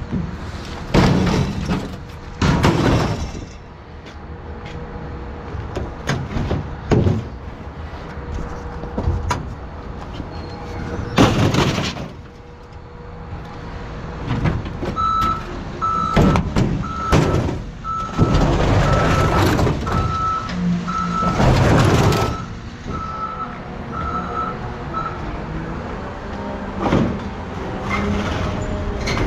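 Heavy scrap metal and appliances being dragged and dropped off a truck bed, with several loud crashes and scrapes over a low running engine. Midway a vehicle's reversing alarm beeps steadily for about ten seconds.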